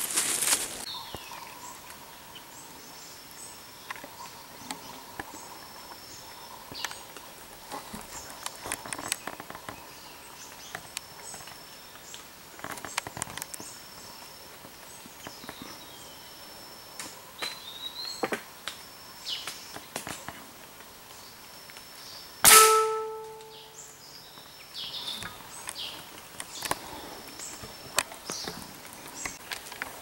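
Single loud gunshot from a hunting long gun about three-quarters of the way through, dying away over about a second. Before and after it there is forest ambience with scattered short bird calls and leaf rustling.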